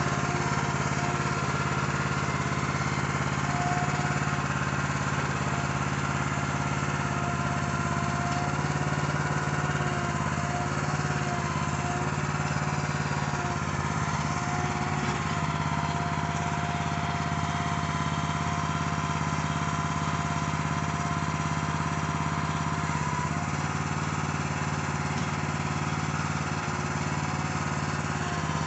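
Small gasoline engine of a newly assembled Harbor Freight towable backhoe, running steadily, its note wavering slightly now and then.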